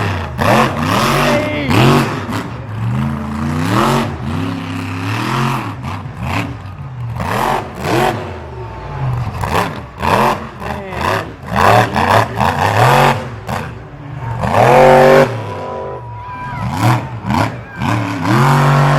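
Grave Digger monster truck's engine revving hard, the pitch climbing and dropping again and again as the throttle is worked through the freestyle, with the loudest burst about three-quarters of the way through. A few sharp knocks come through between the revs.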